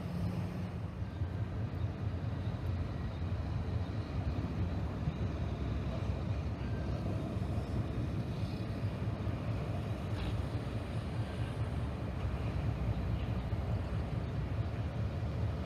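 EMD diesel switcher locomotive running at low throttle as it moves slowly along yard track, a steady low rumble.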